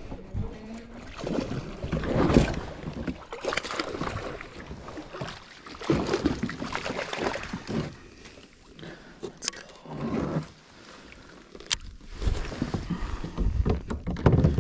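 Irregular knocks, rustles and water sloshing around a plastic fishing kayak as a hooked fish is brought alongside and the landing net is picked up, with a couple of sharp clicks about halfway through.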